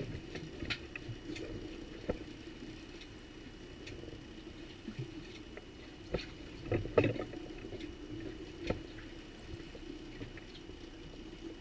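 Outboard motor humming steadily while water slaps and gurgles against the aluminium boat hull, with scattered knocks and clicks. The loudest is a short cluster of knocks about seven seconds in.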